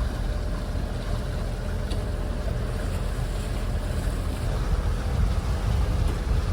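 Steady rush of wind and water aboard a sailing yacht under way at sea, with no distinct separate sounds.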